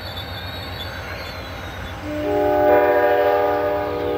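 Amtrak passenger train rolling along the station platform with a steady low rumble. About halfway in, the locomotive's horn starts sounding: a sustained chord of several notes, the loudest sound, still going at the end.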